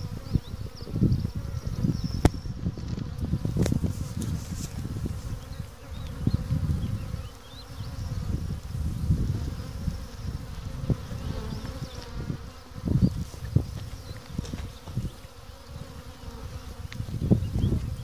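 Insects buzzing, the sound swelling and fading irregularly, with a few faint ticks.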